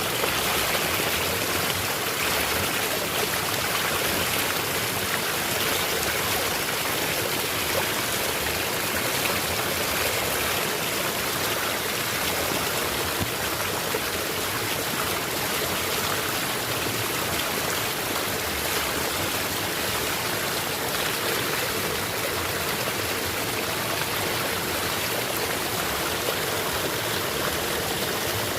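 Small natural waterfall splashing into a stream, a steady rushing and trickling of water.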